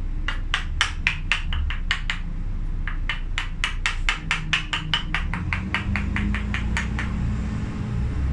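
Rapid, even taps of a mallet on a chisel, about four a second, in two runs with a short pause near the middle, hollowing out the dead, broken wood of a bonsai trunk.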